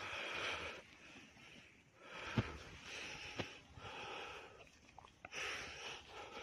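Goat giving about four hoarse, wheezing, breathy cries in distress, about a second and a half apart, with a couple of short knocks among them.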